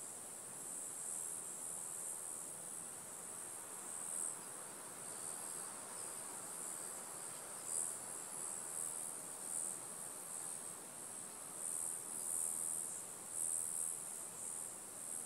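Outdoor insect chorus: a steady high-pitched trilling that swells louder now and then.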